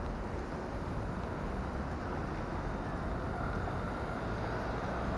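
Steady noise of road traffic, cars driving past on a multi-lane city street.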